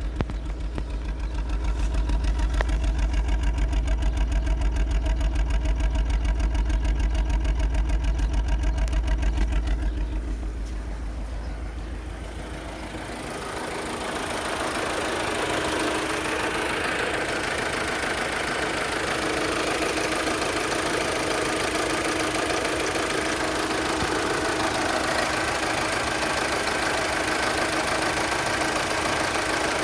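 Vectra 2.2 16V four-cylinder petrol engine idling unevenly with an added engine noise: a rough, unstable idle. For about the first ten seconds a loud, rhythmic low throb dominates. From about thirteen seconds in it gives way to a steadier, brighter running noise.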